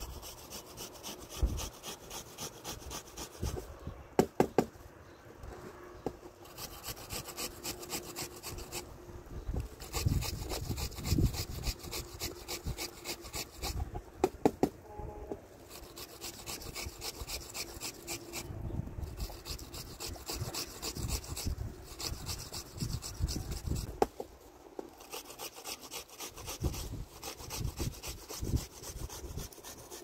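Plastic bottle rolled back and forth by hand over a cloth sheet, used in place of a rolling pin. It gives spells of rapid rasping ticks a few seconds long, separated by short pauses, and a few sharp knocks near 4 and 14 seconds.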